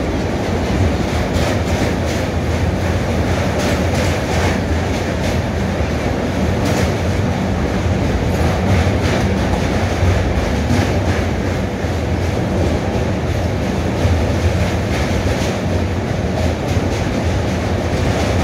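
Two passenger trains passing each other on adjacent tracks, heard from the open doorway of one: a loud, steady rumble and rush of the passing coaches, with quick, irregular wheel clicks over the rail joints.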